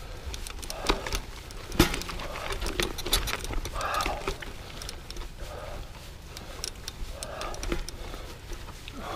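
Mountain biker breathing hard in slow, regular breaths about every second and a half while pedalling up a steep rocky dirt trail. Tyres and bike rattle and click over stones throughout, with one sharp knock about two seconds in.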